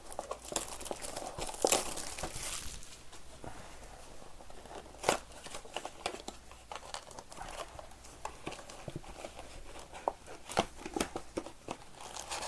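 Foil trading-card pack wrappers crinkling as blaster boxes and packs are handled, with scattered light clicks and taps; the sharpest click comes about five seconds in.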